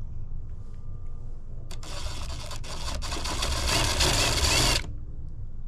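A drill bit cutting a hole through the ATV's body panel: a harsh, grinding scrape lasting about three seconds, with two brief breaks, before it stops suddenly.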